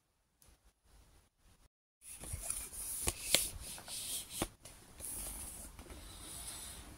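Near silence for about two seconds, then rustling and handling noise from a phone being picked up and moved about close to its microphone, with several sharp clicks and knocks.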